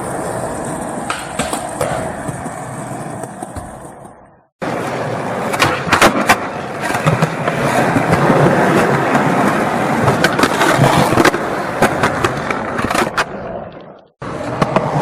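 Skateboard wheels rolling over pavement: a steady rumble broken by sharp clacks from cracks and joints. The rumble fades and cuts off about four and a half seconds in, comes back louder, then fades and cuts off again near the end.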